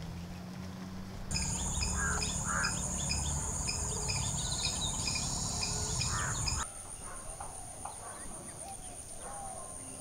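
Insects trilling in a steady, high, pulsing buzz, with birds chirping repeatedly. About a second in the sound switches on abruptly, and past the middle it changes just as abruptly: the bird chirps stop and a single thinner insect trill goes on.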